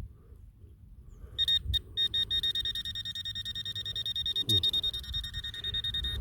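Metal detector sounding on a buried metal target in the dig hole: a high-pitched tone pulsing rapidly, about five beeps a second. It starts about a second and a half in, and there is a brief knock about four and a half seconds in.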